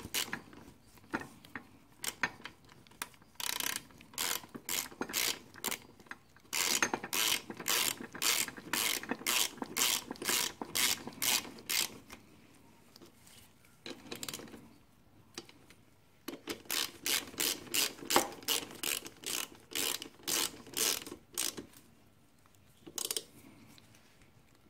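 A hand socket ratchet clicking as caliper mounting bolts are run in. The clicks come in quick runs of several a second, with short pauses between the runs.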